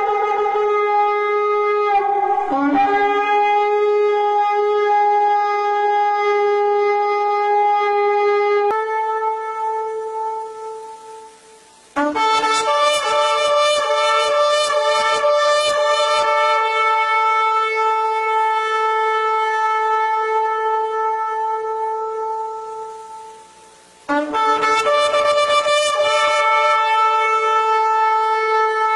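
Long, steady horn blasts with a bright, buzzing tone, one fading out and a new one starting abruptly about 12 seconds in and again about 24 seconds in: the trumpet call of the rapture.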